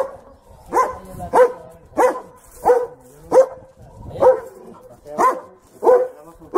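A dog barking over and over: a steady string of about nine short, sharp barks, roughly one every two-thirds of a second.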